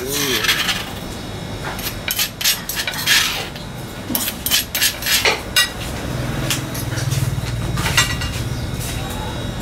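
Kitchen clatter: plates, bowls and utensils clinking and knocking against each other and the counter as food is handled, over a low steady hum.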